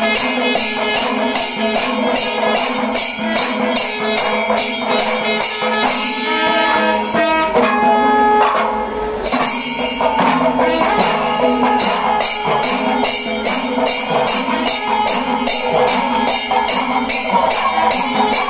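Kerala temple festival melam: ilathalam cymbals clash in a fast, steady beat of about four strokes a second over drums and other instruments. The cymbals break off for about three seconds around the middle, then pick up the beat again.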